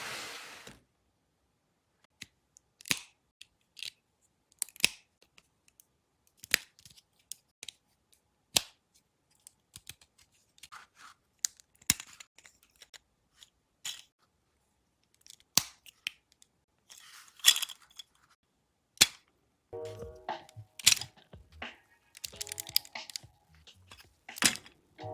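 Irregular sharp plastic clicks of LEGO pieces being handled and snapped together, one every half-second to second. Music with a steady pitched pattern comes in about twenty seconds in.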